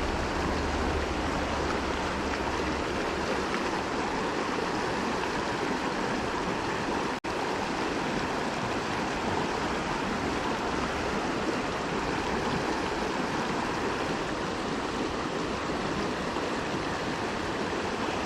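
Mountain creek current rushing steadily. The sound cuts out for an instant about seven seconds in.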